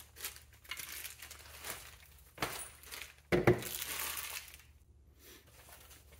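Tools being handled and packed into a soft fabric carrying case: scattered rustles and light knocks, with one heavier thump about three seconds in.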